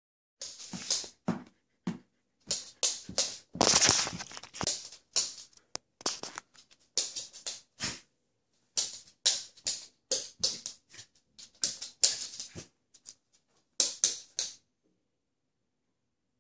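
A kitten and a border collie scuffling at a fabric sofa arm: irregular short rustling, scratching bursts from paws, claws and fur on the upholstery. The bursts stop suddenly near the end.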